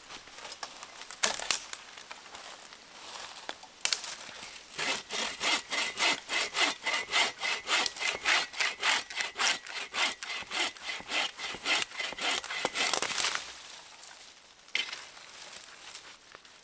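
Hand saw cutting through a fallen wooden branch: steady back-and-forth strokes, about three a second, for about eight seconds, stopping sharply. Before the sawing there are two sharp knocks of wood, and one more after it.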